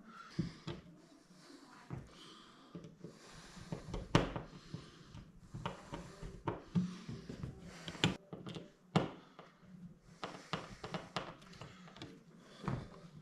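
Hand screwdriver driving screws through a plastic thermostat wall plate into plastic wall anchors: irregular small clicks, scrapes and knocks, a few sharper ones about 4, 8 and 9 seconds in.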